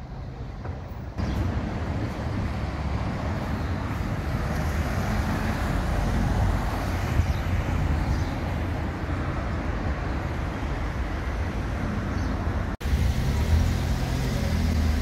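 Road traffic: motor vehicles passing on a street, a steady rumble of engines and tyres. It jumps in abruptly about a second in and drops out for an instant near the end.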